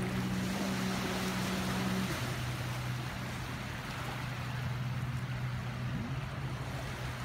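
A boat engine running with a steady low hum, one of its tones dropping out about two seconds in, over the wash of small waves.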